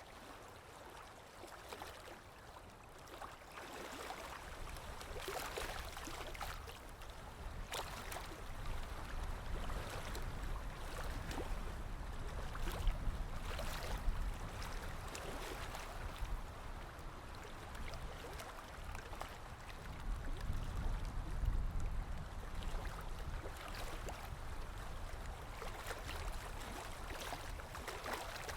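Sea waves washing in and splashing, in slow swells with a low rumble underneath and many small splashy crackles. The sound builds a few seconds in, with surges about halfway through and again later.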